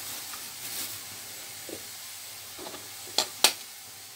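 A hen's egg being cracked against the rim of a glass bowl, two sharp knocks about a quarter-second apart roughly three seconds in. Under them runs the steady sizzle of food frying in a pan on the stove.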